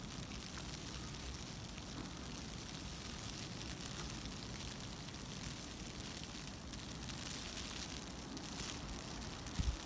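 Steady outdoor background noise, an even hiss and rumble, with a few faint ticks.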